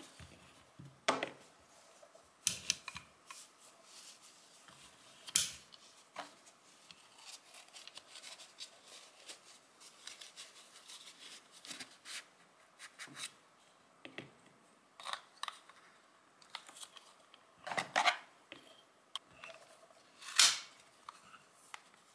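Handling noise of a Stgw. 57 trigger housing and its pistol grip being turned over and fitted together by hand: scattered small clicks and knocks of metal and plastic parts, with two louder knocks near the end.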